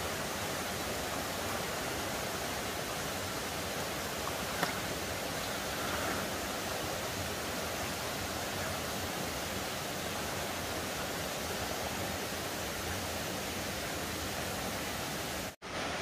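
Steady rush of a mountain stream running over rocks, cutting out for a moment near the end.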